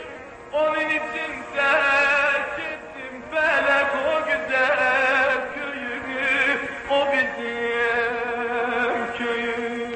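A male voice singing a Turkish folk song in long phrases with heavy vibrato, over musical accompaniment.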